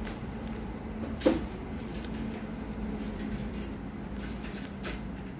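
Quiet indoor room tone with a faint steady low hum, broken by one sharp knock a little over a second in and a few faint clicks near the end.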